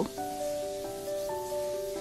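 Background music: a slow melody of held notes.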